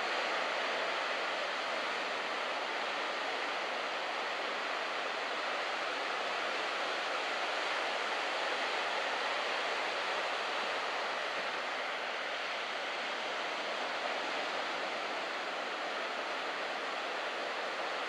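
Surf breaking and washing in at a beach break: a steady rush of whitewater, with no single crash standing out.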